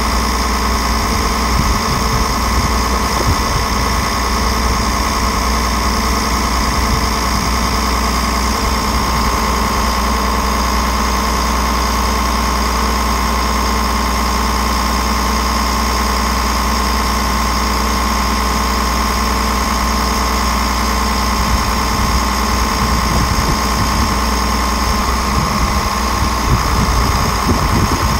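Tractor engine running steadily, powering the hydraulics as a disc harrow's wings fold up.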